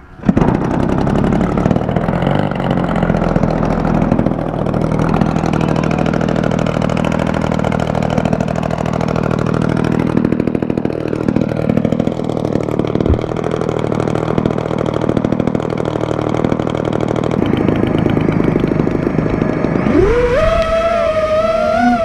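Desert Aircraft 120cc two-stroke gasoline twin on a giant-scale Edge 540 model plane, hand-flipped by the propeller and catching at once with choke off, then running steadily and loudly. Near the end a rising, wavering whine joins in.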